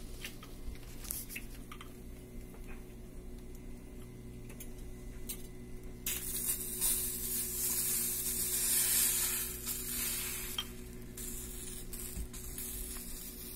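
Beaten egg and vegetable omelette mixture poured into a hot cast iron skillet, sizzling as it hits the pan about six seconds in, then easing off over the next few seconds. A few faint clicks come before it.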